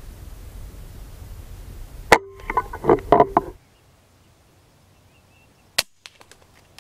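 Silenced .22 BSA Superten pre-charged air rifle firing once about two seconds in, a single sharp crack, followed by a second or so of knocks and rattles. Before the shot, a steady low wind rumble on the microphone; one faint click comes near the end.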